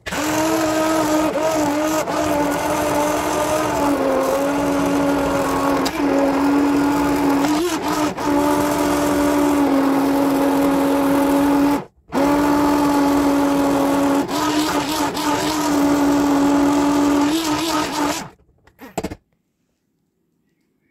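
Hand-held immersion blender running in a pot of boiled potatoes and broth, pureeing the soup. Its motor whine is steady, dipping slightly in pitch now and then as the blade takes the load. It breaks off for a moment about twelve seconds in and stops near the end.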